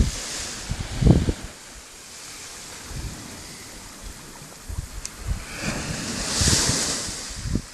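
Small waves washing up on a sandy beach, one wash swelling and fading about two-thirds of the way through, with gusts of wind buffeting the microphone.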